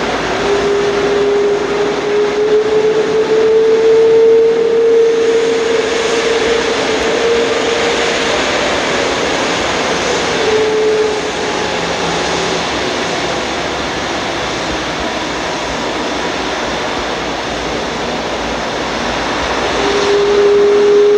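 Boeing 777-200ER's Rolls-Royce Trent engines running at taxi power: a steady jet hiss with a whining tone that rises slightly over the first ten seconds, drops away about halfway through and returns near the end.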